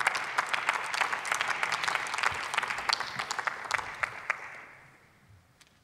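Applause with individual claps, dying away about four to five seconds in.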